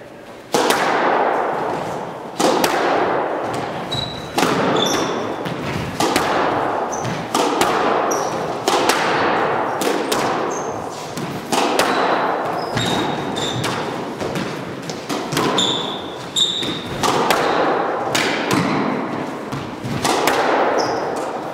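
A squash rally: the ball cracks off racquets and the court walls about once a second, each hit ringing out in the enclosed court. Sneakers give short high squeaks on the hardwood floor between the hits.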